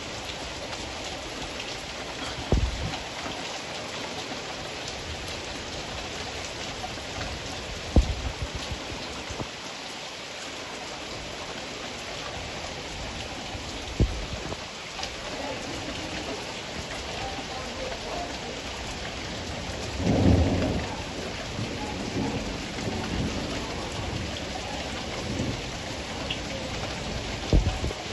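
Heavy rain falling steadily. Sharp cracks sound four times, and a longer low rumble of thunder comes about twenty seconds in.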